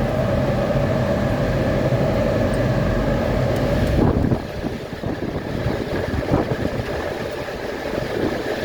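Bitcoin mining farm cooling fans and miners running as a loud, steady roar with a droning hum. About four seconds in there is a knock, and after it the roar is quieter and less even.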